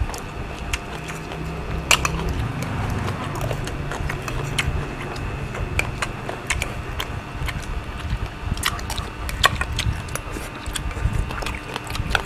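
Spoons and forks clinking and scraping on plates during a meal, in irregular sharp clicks, over a low steady hum.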